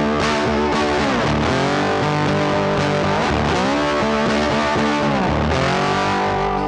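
Background rock music with distorted electric guitar playing held, bending notes over a steady bass.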